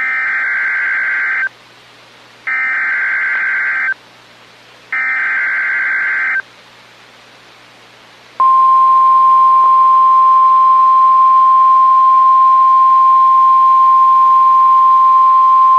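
Emergency Alert System SAME header: three bursts of digital data screech, about a second and a half each with a second's gap, marking the start of a new alert. About two seconds after the last burst, the NOAA Weather Radio 1050 Hz warning alarm tone comes in as one steady, loud, high tone.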